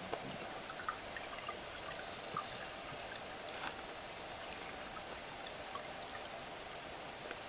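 Underwater ambient noise picked up by a camera below the surface: a steady hiss with scattered small clicks and ticks.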